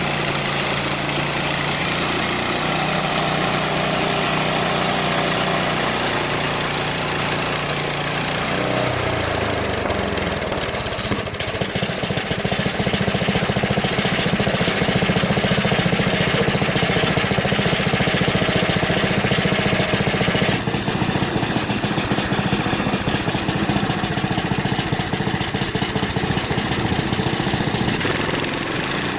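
Frontier OS23 portable sawmill's small gas engine running with its new muffler; about nine seconds in its pitch drops and it runs on lower and rougher under load, as when the band blade is working through a maple log.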